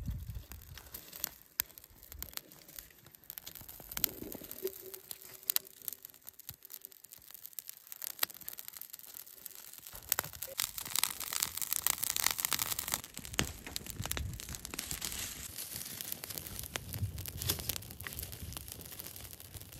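Dry brush and grass catching fire and crackling as it burns, with rustling of dry stalks. The crackle grows denser and louder about halfway through as the fire takes hold.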